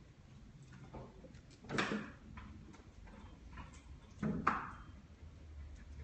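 A felt-tip ink pen scratching and tapping on paper in short hatching strokes, with two louder, longer scratches about two seconds and four and a half seconds in.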